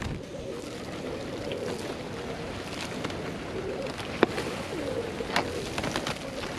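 Flock of feral rock pigeons cooing while being fed, with a few sharp clicks, the loudest about four seconds in and another about a second later.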